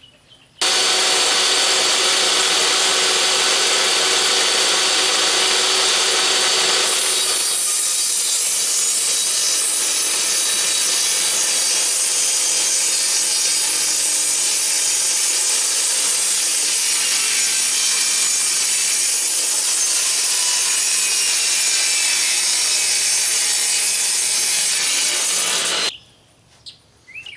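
Portable table saw starting up and running loud and steady, then from about seven seconds in ripping a long sheet of plywood for some twenty seconds before the sound cuts off suddenly near the end.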